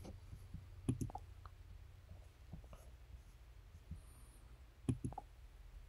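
Quiet room tone with a low steady hum and a few faint computer-mouse clicks: a pair about a second in and another pair near the end.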